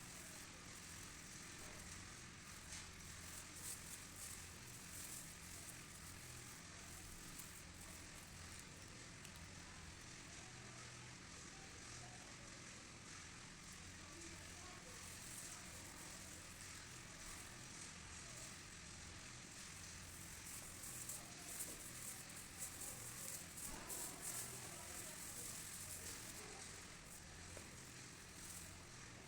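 Faint crunching and crackling of crispy food being chewed, in irregular clusters, over a low steady hum.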